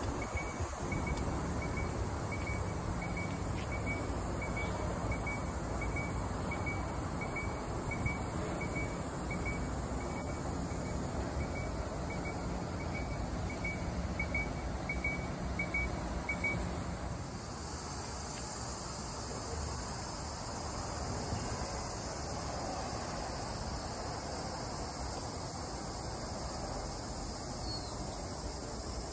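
Steady outdoor background noise with a faint, evenly repeated high insect chirp that stops about halfway through.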